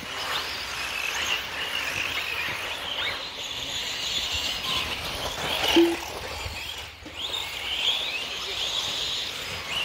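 Several 1/8-scale electric off-road buggies racing, their brushless motors whining in high pitch sweeps that rise and fall as the drivers work the throttle.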